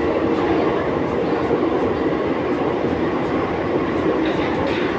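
Santiago Metro AS-02 train running at speed, heard from inside the passenger car: a steady rumble of wheels and traction equipment with a faint constant hum.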